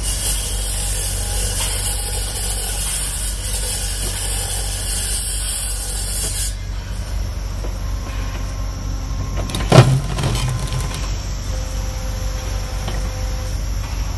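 Hydraulic excavator engine running steadily while it powers a Hydraram HPC-500 hydraulic pile breaker clamped on a square concrete pile. A high hiss runs for the first six seconds or so and then stops. One loud, sharp bang comes about ten seconds in.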